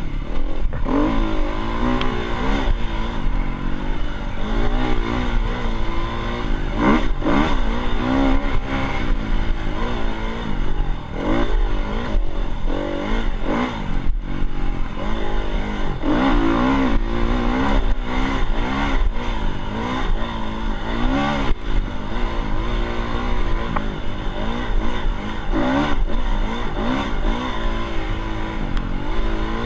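Dirt bike engine running, its revs rising and falling over and over with the throttle.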